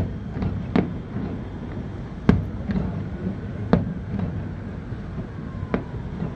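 Fireworks shells bursting in a series of sharp bangs, the loudest coming every second or two with fainter pops between them, over a steady low rumble.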